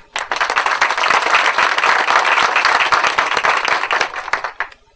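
Audience applauding, a dense patter of many hands that starts at once and dies away near the end.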